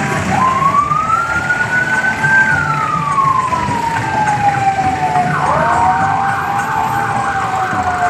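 A vehicle siren wailing: one slow tone rises to a peak and falls away over about five seconds, then a second wail starts, joined by a fast warbling tone above it, over steady street noise.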